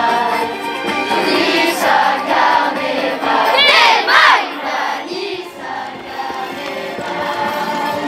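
Children's choir singing together in unison. About four seconds in, a high voice glides up and down above the singing.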